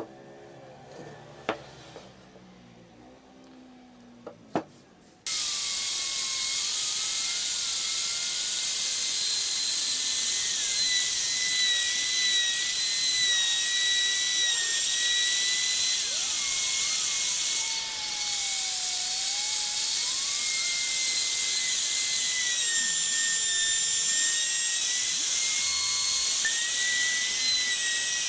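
A few light taps of wood being handled, then about five seconds in a compact trim router starts abruptly and runs with a steady high whine, its pitch dipping slightly now and then as it cuts wood in the jig.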